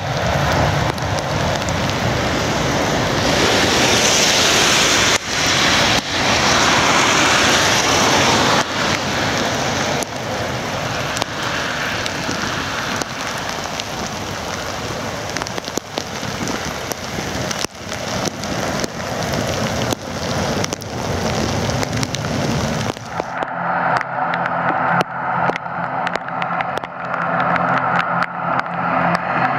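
Heavy rain noise mixed with the distant roar of a Boeing 737-800's jet engines on its take-off run. About three-quarters of the way through, the sound changes suddenly to an ATR 72 turboprop taxiing, a steady hum made of several held tones.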